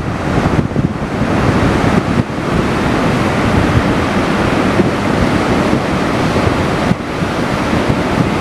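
Ocean surf breaking on a sandy beach: a steady, loud rush of waves, with wind on the microphone adding a low rumble.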